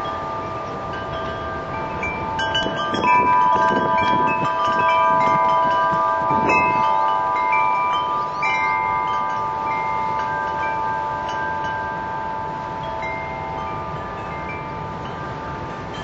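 Wind chimes ringing in strong wind, many notes struck over and over and left to ring into each other. Wind gusts buffet the microphone, strongest from a few seconds in to about halfway.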